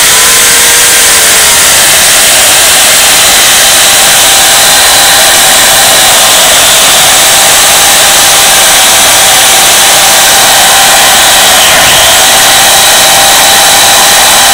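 Portland 14-inch electric chainsaw cutting down through a log: the electric motor runs under load with a steady, loud whine over the rasp of the chain. The pitch settles a little lower as the chain bites in at the start.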